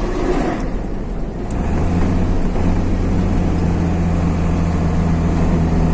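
Truck engine and road noise heard from inside the cab while driving. About a second and a half in, the engine settles into a steady low drone.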